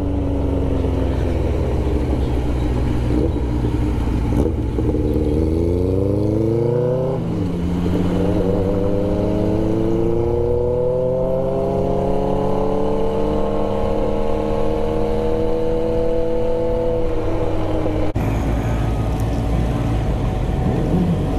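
Motorcycle engine accelerating, its pitch climbing to a gear change about seven seconds in, then rising slowly for some ten seconds before breaking off sharply near the end.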